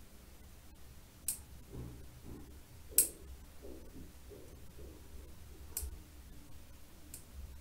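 Four short, sharp clicks a second or more apart, the loudest about three seconds in: small metal hand tools tapping and touching against a phone logic board during micro-soldering work.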